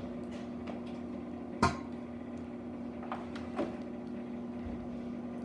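Steady electrical hum of a running microwave oven. A sharp knock comes about a second and a half in, and two lighter knocks follow a couple of seconds later.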